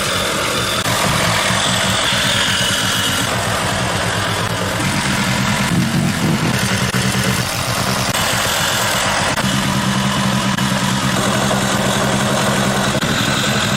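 Small gasoline engine of a homemade generator running steadily, with a brief change in its note about six seconds in.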